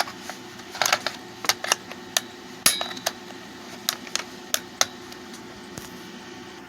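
Irregular plastic clicks and taps from handling an Eton clock radio at its battery compartment, most of them in the first five seconds, then fading to a steady low hum.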